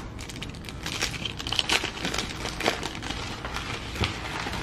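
Crinkling and crackling of a Bowman baseball card pack wrapper as it is handled and the cards are pulled out of it, in irregular crackles throughout.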